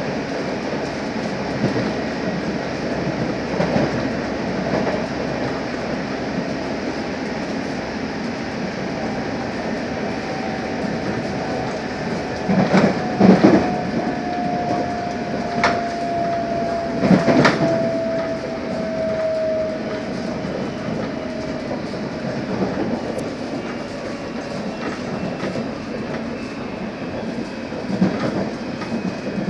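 London Underground S8 Stock train running at speed, heard from inside the carriage: a steady rumble of wheels on track. Loud knocks come from the running gear about a third of the way through and again a few seconds later. A faint whine sinks slowly in pitch through the middle.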